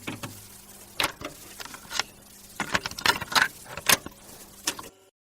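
Irregular clicks and rattles, a handful of sharp knocks over a faint steady hum, cutting off suddenly near the end.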